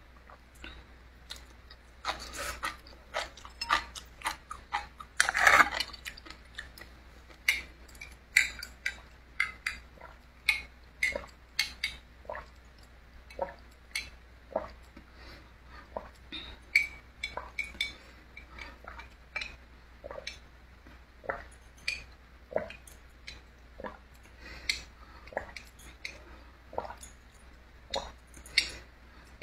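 Close-up eating and drinking sounds: irregular short wet clicks and sucks from sipping a drink through a straw, with light taps and clinks of the cup being handled.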